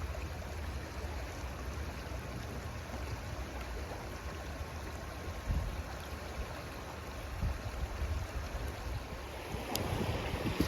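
Steady rush of flowing river water with a low rumble underneath, broken by a few soft knocks in the second half.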